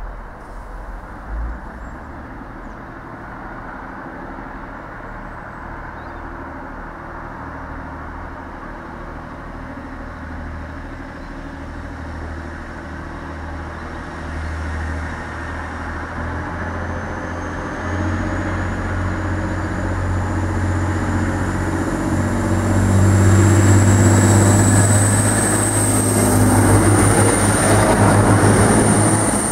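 A train grows steadily louder with a deep running hum. From about halfway a high whine slowly rises in pitch, and the sound is loudest over the last several seconds.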